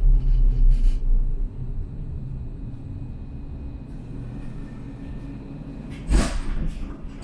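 Tram running and drawing to a halt at a stop: a strong low rumble that dies down about one and a half seconds in, then a quieter steady hum while it stands, broken by one short loud burst of noise about six seconds in.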